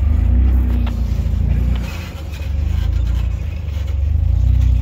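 Jeep engine running at low revs as it crawls over a trail obstacle. The throttle eases off about two seconds in, then picks up again.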